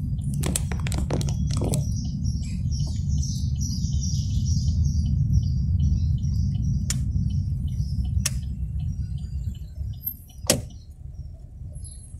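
Inside a Chevrolet Cobalt driving slowly: the engine and tyres give a steady low rumble that eases off near the end as the car slows into a turn. There is a quick cluster of sharp clicks in the first two seconds and a few single clicks later, the loudest about ten seconds in.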